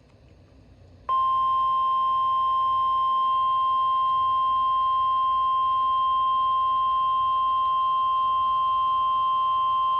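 NOAA Weather Radio 1050 Hz warning alarm tone, one steady unbroken tone that starts suddenly about a second in, after faint radio hiss, and holds at constant level; it signals that a warning broadcast is about to follow.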